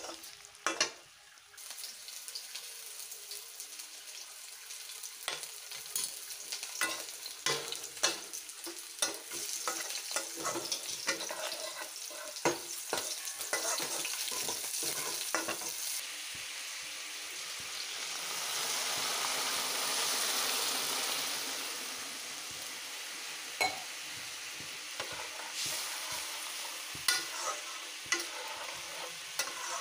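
Pigeon meat and potatoes frying in a metal kadai, sizzling steadily while a wooden spatula stirs and scrapes them, knocking against the pan again and again. The sizzle swells for a few seconds past the middle.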